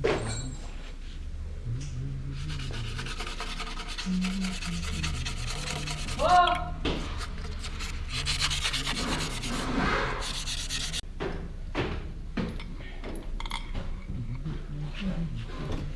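Rapid abrasive rasping, like sanding or scraping a hard surface, from about two seconds in until about eleven seconds in, with a brief squeak about six seconds in.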